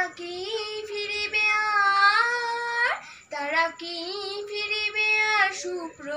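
A young girl singing solo without accompaniment, holding two long notes, the first ending in an upward slide.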